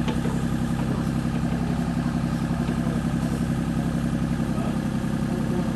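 Kubota mini excavator's diesel engine running steadily while the arm digs a trench.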